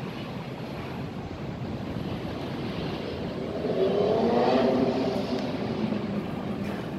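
Steady rumbling city noise with a motor engine passing, its pitch rising then falling, loudest about four to five seconds in.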